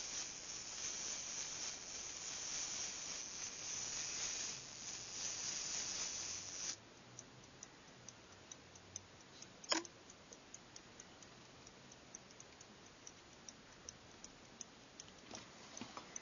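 Handling noise as fingers turn a verge fusee pocket-watch movement, stopping suddenly about seven seconds in. After that the movement's verge escapement ticks faintly and steadily, with one louder metallic click about ten seconds in.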